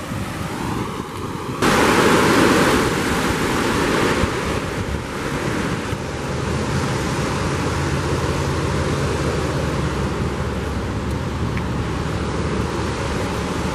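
Steady rush of river water spilling over a two-step low-head dam, mixed with wind noise on the microphone. The rush gets louder about two seconds in.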